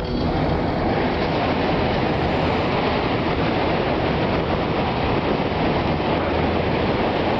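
Steady roar of strong tornado winds: a dense, even rushing noise with no let-up.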